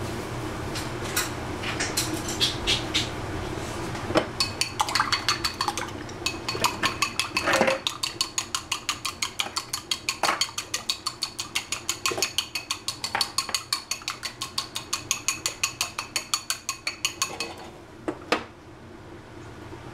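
Wooden chopsticks beating two raw eggs in a bowl: a fast, even run of clicks against the bowl at about four a second, starting a few seconds in and stopping shortly before a single louder knock near the end, over a steady low hum.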